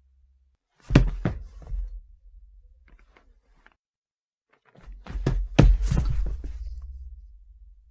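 Two body-fall sound effects: a heavy thud followed by a couple of smaller knocks about a second in, then a longer fall of several thuds starting about five seconds in, the loudest near six seconds, tailing off after.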